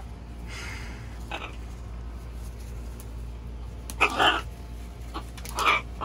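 Macaw squawking: two short, loud, harsh calls, the first about four seconds in and the second near the end, with fainter sounds earlier, over a steady low hum.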